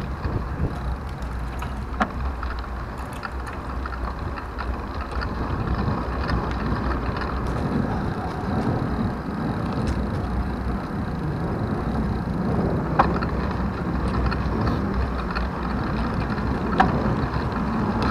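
Riding a 2020 Trek Dual Sport 4 hybrid bicycle: steady wind rumble on the microphone with tyre and road noise, and a few sharp clicks, about 2 s in, about 13 s in and near the end.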